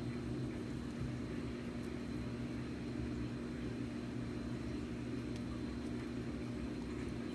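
Steady low mechanical hum over a faint even hiss, with a few faint ticks.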